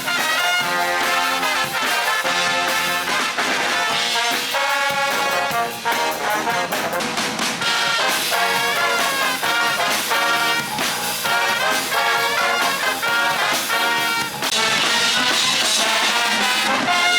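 High school marching band playing a lively brass tune, trumpets and trombones over a steady drumbeat.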